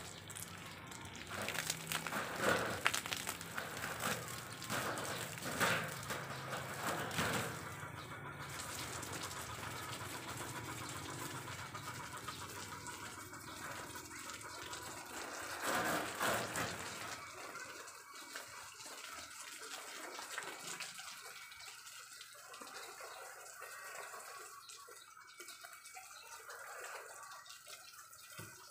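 Water spraying from a garden hose onto leafy garden plants, a steady hiss that surges louder several times in the first half and grows fainter toward the end.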